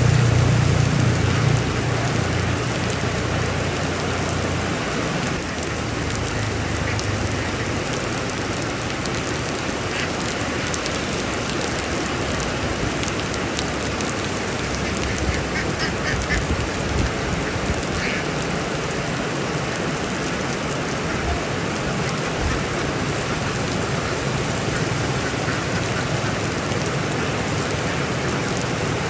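Heavy rain falling steadily, with a few short duck quacks in the middle stretch. A low rumble sits under the rain for the first few seconds.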